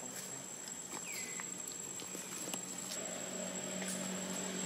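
Outdoor ambience of insects with a steady high-pitched drone, small scattered rustles and clicks in the leaf litter, and one short falling chirp about a second in.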